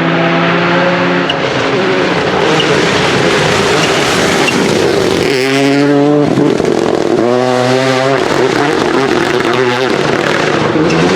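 Rally car engine at high revs on the stage, loud throughout. The engine note drops out and returns several times with short breaks in between.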